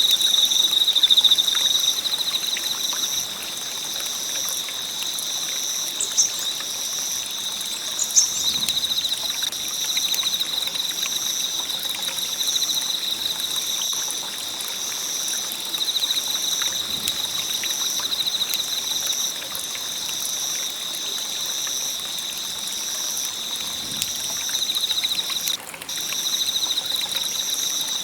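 Wood fire crackling steadily, with a couple of sharper pops, over a continuous high-pitched insect trill.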